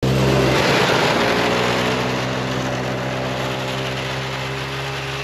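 Snowmobile engine running at a steady pitch, gradually getting quieter.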